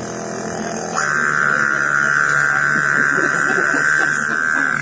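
A boy imitating a running generator with his voice: a steady buzzing drone that about a second in jumps to a louder, higher steady whine.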